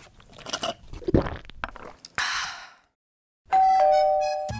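A few crunching noises and a thump, a short whoosh, then a loud two-tone ding-dong doorbell chime near the end, a higher note followed by a lower one.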